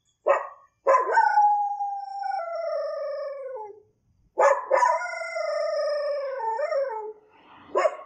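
A dog making odd vocal sounds: a short yelp, then two long drawn-out howls of about three seconds each that slide down in pitch, the second one wavering, and another short yelp near the end.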